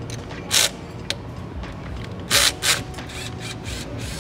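Hand tools at work unbolting a truck engine's throttle body: three short, sharp bursts of tool noise, one about half a second in and two close together around two and a half seconds in, with a small click between, over a steady low hum.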